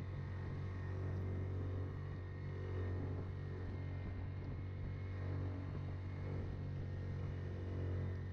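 Yamaha Grizzly ATV on Camso tracks with its engine running at a steady speed, a constant low drone with no change in revs.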